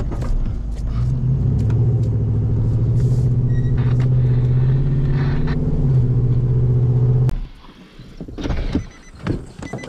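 Pickup truck engine running, heard from inside the cab, rising a little in pitch about a second in as the truck speeds up, then holding steady. The engine sound stops abruptly about seven seconds in, leaving a quieter stretch with a few short knocks.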